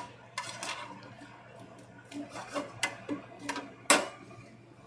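Scattered light clicks and taps, about a dozen at uneven intervals, the sharpest nearly four seconds in, over a faint low steady hum.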